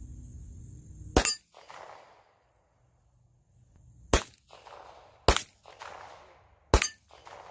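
Four handgun shots, each with a short echo trailing off. The first comes alone; the other three follow closer together, about a second to a second and a half apart.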